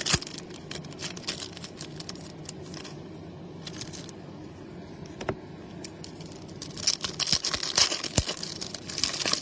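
Baseball card pack wrappers crinkling and tearing open, with sharp clicks and rustles as the packs and cards are handled. The handling is busiest right at the start and again in the last two or three seconds, and quieter in the middle.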